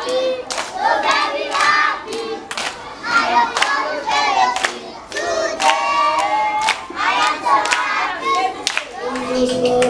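A group of children singing and chanting together, with sharp hand claps throughout.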